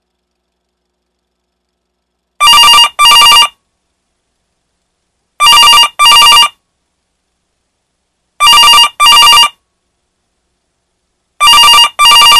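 Telephone bell ringing in a double-ring pattern, ring-ring, four times about three seconds apart, starting a couple of seconds in.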